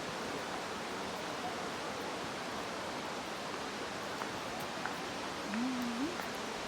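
Steady rush of falling water from a waterfall, an even hiss.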